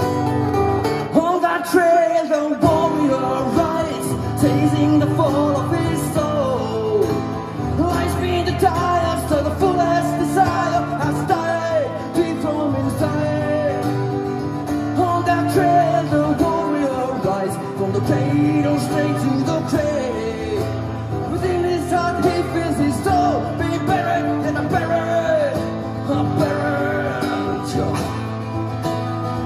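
Live acoustic music: two acoustic guitars strummed and picked together, with a melody line bending and gliding above the chords throughout.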